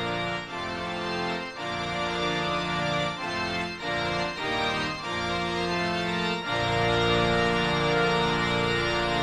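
Background music of slow, held chords, changing every second or two.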